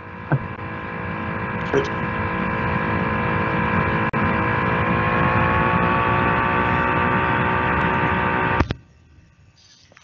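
Steady electrical hum with several held tones, growing louder over the first few seconds and cutting off abruptly near the end.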